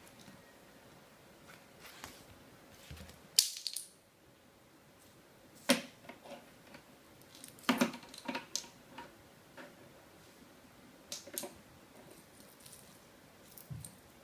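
A plastic disposable lighter clattering on a hard tile floor as a cat bats it about: scattered sharp clicks and knocks a second or two apart, the loudest a few seconds in and again around the middle, with a couple of dull low thumps.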